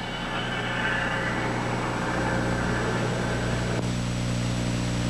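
Road roller's engine running steadily as it works over fresh asphalt. A little under four seconds in, the sound cuts sharply to a tractor loader's engine with a steady low drone.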